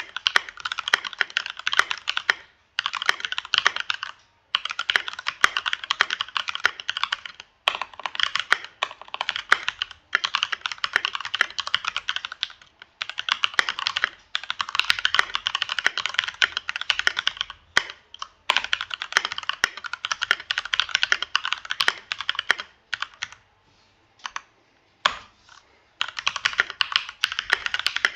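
Fast typing on a Keychron K2 V2 mechanical keyboard: rapid key clicks in bursts of a few seconds with short pauses between, thinning to a few scattered keystrokes for a couple of seconds near the end.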